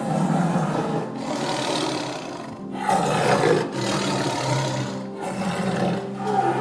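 An animal roaring several times, each roar about a second long with short breaks between, over soft background music with sustained tones.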